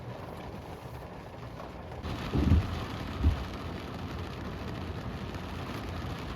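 Steady rain that comes in abruptly about two seconds in, after a quieter start, with two short low thumps soon after.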